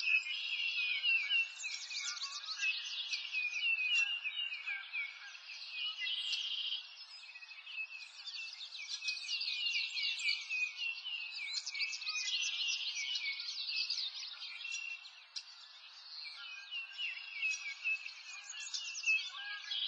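Dense chorus of small animals calling, many high chirps and trills overlapping without a break, easing off for a moment about eight and fifteen seconds in.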